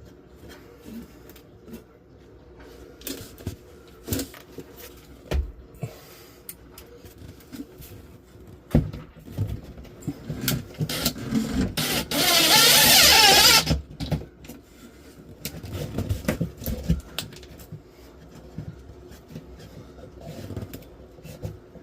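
A power drill drives a screw into wood in one burst of about a second and a half near the middle, among scattered knocks and clicks from handling the work.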